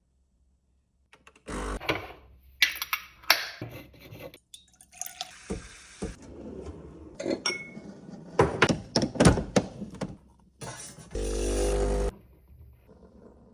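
Kitchen clatter of dishes and cutlery: a string of clinks and knocks, with a steady buzz lasting about a second near the end.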